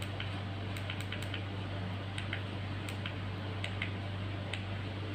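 Faint, irregular clicks of the push buttons on a small LCD battery capacity and voltage meter being pressed, over a steady low hum.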